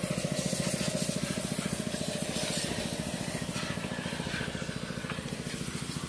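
An engine running steadily with an even, fast chugging pulse, with a faint hiss of noise above it.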